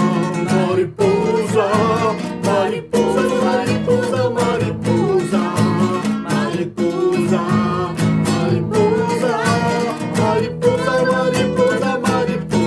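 Music: an acoustic guitar strummed and plucked, tuned out of tune on purpose to stand for the off-key sound of a moth's flight, with a wavering melody over it.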